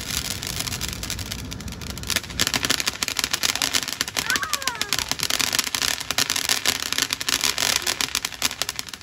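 Ground fountain firework spraying sparks: a steady hiss at first, then from about two seconds in a dense, loud crackling of many tiny pops. A brief sliding high tone sounds once, about four seconds in.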